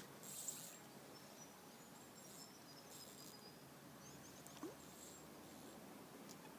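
Near silence of a quiet riverbank, with scattered faint high chirps and whistles from wild creatures, a brief soft hiss about half a second in, and one short rising call near the middle.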